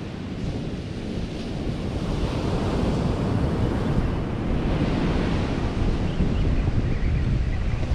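Ocean surf breaking and washing up the beach, with wind buffeting the microphone in a steady low rumble. The wash of the surf swells louder about halfway through.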